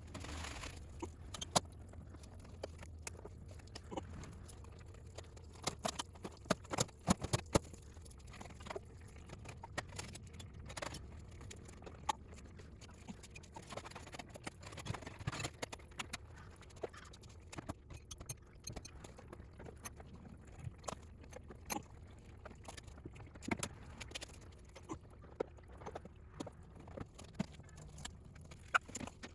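Irregular small clicks, clinks and knocks of hand tools and car parts being handled, over a low steady hum.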